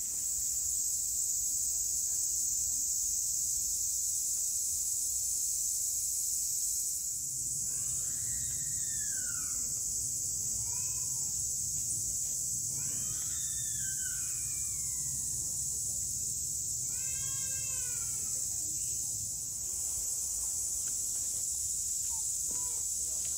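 Steady, high-pitched drone of insects calling, running throughout. A few short, distant voices call out in the middle.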